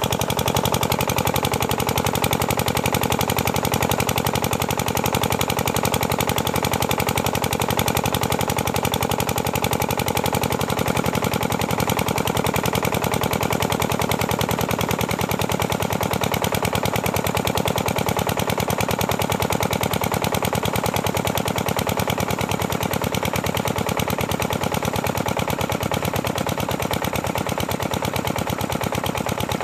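Kirloskar 5 hp single-cylinder diesel water-pump engine running steadily with an even, rapid beat of firing strokes.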